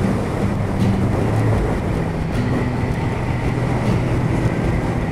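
Motorcycle engine running steadily under way, heard from a camera mounted on the bike, with rushing air noise. The engine note shifts slightly about two seconds in.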